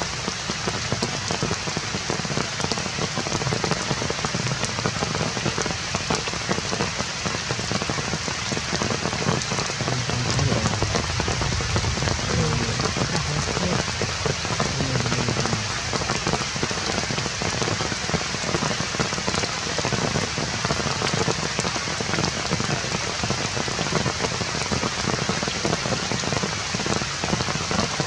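Steady rain falling, with a dense patter of drops on surfaces.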